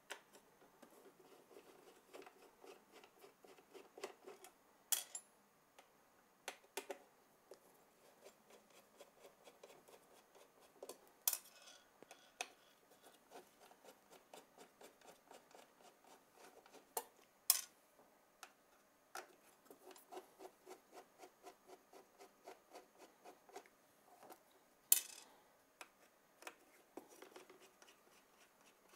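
Small screwdriver backing T8 Torx screws out of a steel cover plate: faint, closely repeated small ticks of the bit turning in the screw heads. Four sharper metal clicks stand out, several seconds apart.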